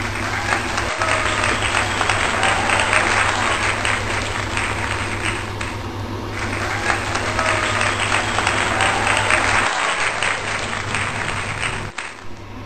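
Crowd applause with a few faint whistles, played as an added clip that runs twice with a short break about halfway.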